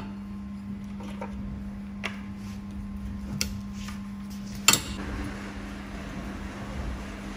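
Steady machine hum from a running 2 kW handheld fiber laser welding machine, with a few light clicks as the steel plates and welding head are set in place. The sharpest click comes about two-thirds of the way through.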